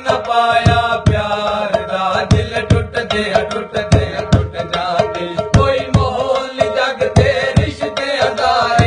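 A man singing a Punjabi song over a steady beat of hand-drum strokes with deep bass, several strokes a second.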